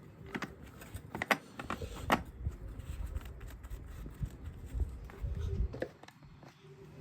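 Irregular metal clicks, clinks and knocks from hand work on a coil spring compressor and strut, over low handling rumble, as the compressed spring is let down into place.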